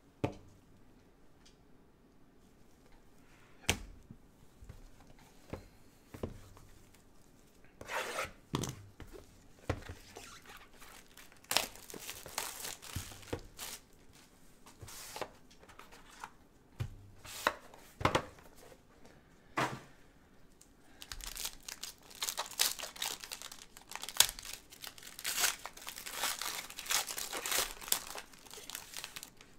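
Foil wrapper of a trading-card pack being torn open and crinkled by gloved hands, a dense run of crackling near the end. Before it come scattered sharp taps and short rustles of cards and cardboard being handled.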